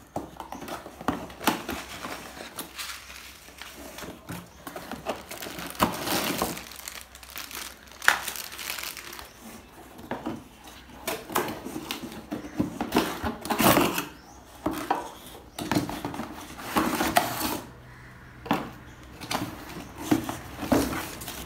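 Unboxing a Dell laptop: the cardboard box's flaps being opened and handled, with plastic packaging bags crinkling. Irregular rustles, scrapes and light knocks, with busier stretches around six, fourteen and seventeen seconds in.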